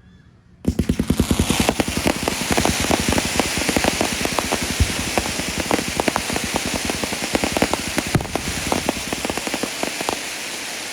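Fireworks going off: under a second in, a rapid volley of sharp pops starts, then runs on as dense crackling over a steady hiss.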